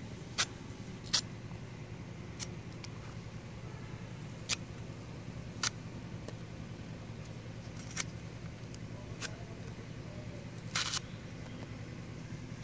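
Water hyacinth stalks cut on a boti, a curved blade held upright on the ground: a sharp, short click with each cut, every second or two, over a steady low hum.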